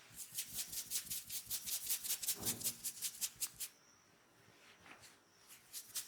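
Rapid hand tapping massage strokes on a person's back: crisp, even slaps about seven a second that stop about three and a half seconds in and start again near the end.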